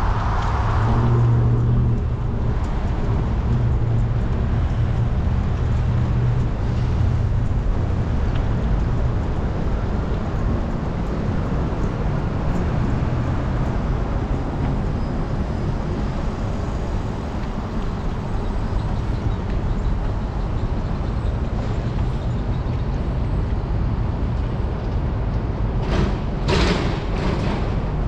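Steady low rumble of road and wind noise while cycling along a city street, with motor traffic around. A few short, sharp noises come near the end.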